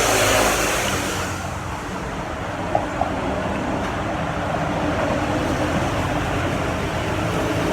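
Road traffic passing close by, loudest in the first second as a vehicle goes past, then a steady traffic rumble with two light clicks about three seconds in.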